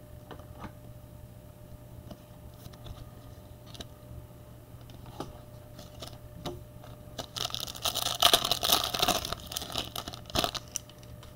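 Trading cards being handled and shuffled, with scattered light clicks and taps, then about seven seconds in roughly three seconds of loud crinkling from a card pack's wrapper being torn and crumpled, over a steady low hum.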